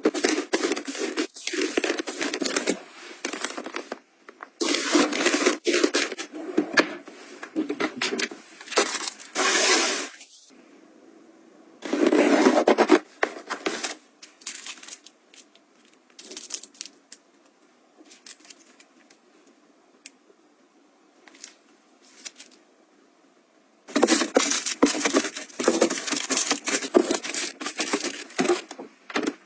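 Packaging being handled: bursts of crinkling, tearing and scraping, with quieter pauses between them.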